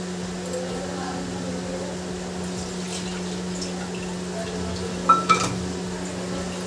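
Two quick clinks of steel kitchenware knocking together, a strainer against a steel bowl, about five seconds in, over a steady low hum.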